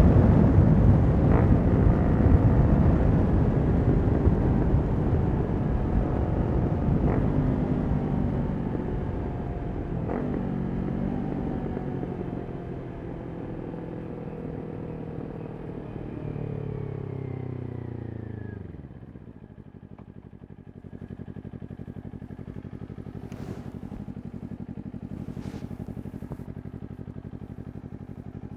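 Kawasaki Ninja 400 parallel-twin through a Yoshimura exhaust, decelerating with its engine note falling as it slows, with a few sharp pops on the overrun. About two-thirds through it settles to a steady burbling idle.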